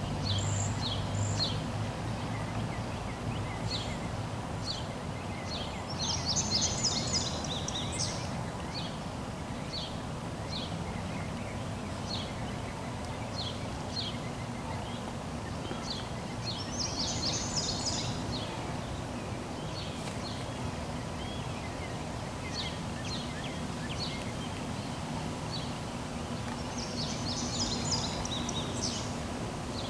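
Outdoor ambience with wild birds: short high chirps scattered throughout, and three times, about ten seconds apart, a brief phrase of rapid repeated high notes, over a steady low hum.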